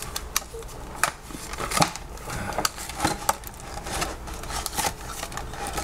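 Cardboard backing of a blister pack being torn and pried away by hand, with crinkling of the clear plastic blister and many irregular sharp clicks and cracks.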